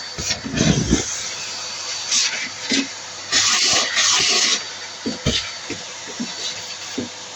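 Vacuum cleaner running steadily as it sucks lint out of a tumble dryer, with louder hissing surges as the nozzle draws in air and scattered knocks of the nozzle against the dryer.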